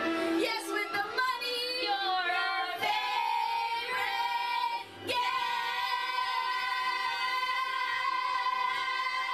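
A group of young women singing the closing line of a show-tune parody, ending on one long held note from about halfway through.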